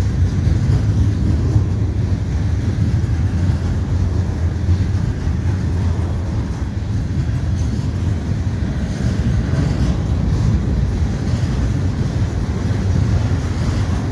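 Freight train cars (tank cars, centerbeam flatcars and gondolas) rolling steadily past at speed: a continuous low rumble of steel wheels on rail.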